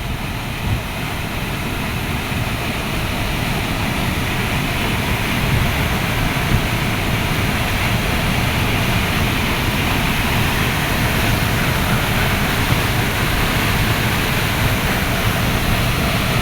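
Waterfall's steady rush of falling water, growing a little louder over the first few seconds and then holding even.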